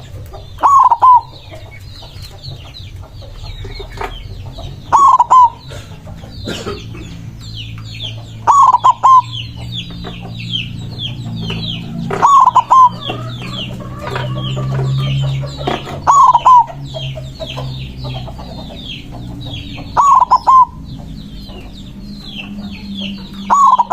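White zebra dove (perkutut putih) cooing its loud, rhythmic song: seven short phrases of quick clipped notes, one about every four seconds, over constant high-pitched chirping.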